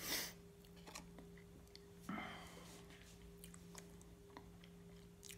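Faint small clicks and taps of a glass hand pipe being handled, with a short breathy rush right at the start and another about two seconds in, over a steady low electrical hum.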